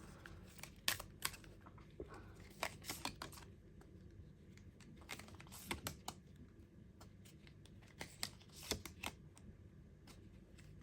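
Tarot cards being handled on a table: scattered light clicks, taps and soft rustles at an irregular pace, some in quick clusters.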